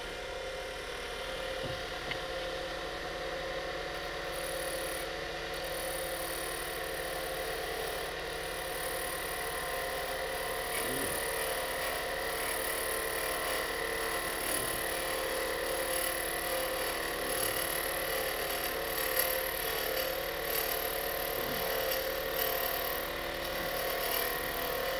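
Woodturning lathe running steadily while a roughing gouge cuts a wooden ring blank spinning on a mandrel, roughing it down: a steady motor hum under the continuous scraping hiss of the cut.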